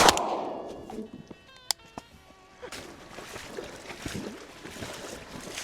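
Two 12-gauge shotgun shots at a pair of incoming ducks: one very loud blast right at the start that rings away over about a second, and a second, quieter shot about 1.7 seconds in. After them, irregular splashing and sloshing in shallow water.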